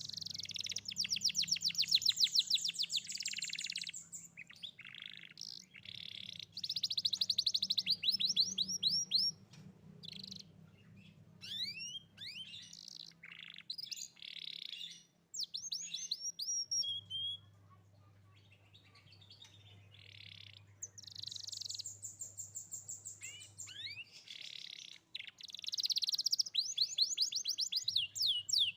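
A young domestic canary in full song: long, fast trills and rolling phrases, with runs of quick rising whistled notes, broken by short pauses.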